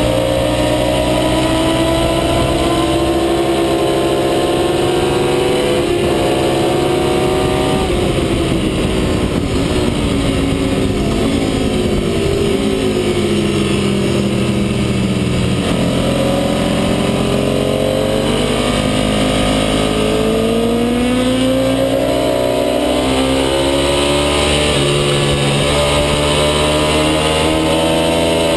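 Onboard sound of a racing motorcycle at speed, with wind noise across the microphone. The engine note climbs for the first several seconds, falls away a little after a third of the way in, climbs again in the middle, and rises and falls once more near the end.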